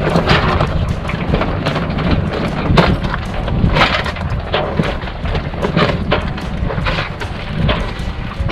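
Wind buffeting the microphone on a sailboat's foredeck, with irregular sharp cracks, knocks and rattles from the loose sail and rigging while the sail is hauled up at the mast.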